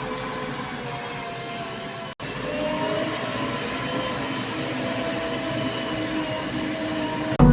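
JCB earthmoving machine's engine running steadily while working, with a faint whine under the engine noise and a momentary dropout about two seconds in.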